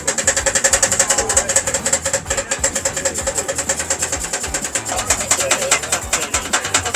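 A small engine running steadily with a fast, even clatter of about a dozen beats a second.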